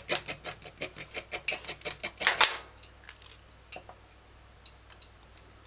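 Knife blade scraping the skin off a carrot in quick, even strokes, about six a second, for the first two and a half seconds, the last stroke the longest and loudest; then only a few faint clicks.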